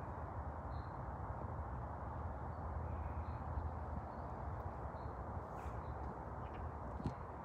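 Woodland outdoor ambience: a steady low rushing noise, with faint high bird chirps every second or so and a few soft knocks near the end.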